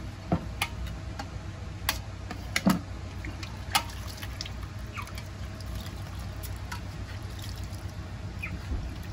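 Water splashing and dripping as pieces of cassava are handled in a metal bowl of water, with scattered sharp clicks and knocks.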